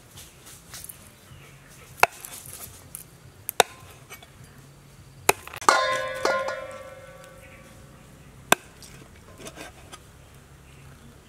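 Cleaver chopping raw snake meat on a wooden chopping board: single sharp chops a second or two apart, about five in all. One stroke a little past the middle clangs and leaves a metallic ring that fades over about two seconds.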